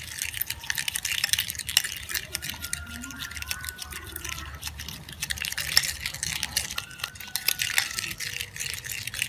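A plastic spoon stirring a liquid sauce in a ceramic bowl, with quick, constant scraping and clicking against the bowl and sloshing liquid, as the sugar and MSG are dissolved into the fish-sauce mixture.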